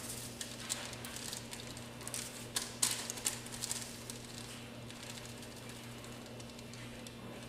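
Small paper packets of active dry yeast crinkling as they are torn open and shaken out over a mixing bowl: a scatter of light crackles, busiest in the first few seconds, over a steady low hum.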